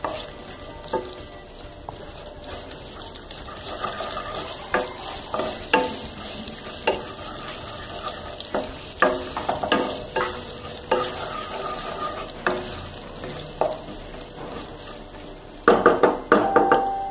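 Whole spices sizzling in hot oil in a nonstick kadai, the tempering (tadka) for dal fry, with a spatula stirring and knocking against the pan at irregular moments. A run of quicker, louder knocks comes near the end.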